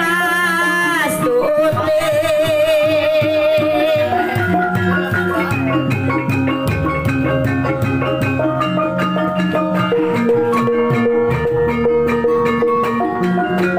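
Javanese gamelan ensemble playing a rhythmic piece: bonang kettle gongs ringing steady pitched notes over regular kendang drum strokes. A wavering held melody line sounds over the first four seconds.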